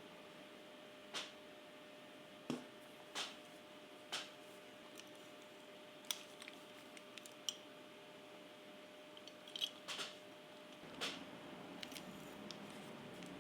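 Faint, sharp clicks at irregular intervals, about ten in all, from a Marcel curling iron's clamp being worked open and shut as hair is wound round it. A steady faint hum runs underneath, and a soft rustle of hair comes in near the end.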